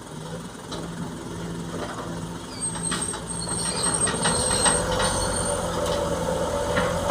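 Heavy machinery at work: a diesel engine building up under load, with a high thin squeal in the middle and several metallic knocks. This fits the excavator loading sand into the dump truck.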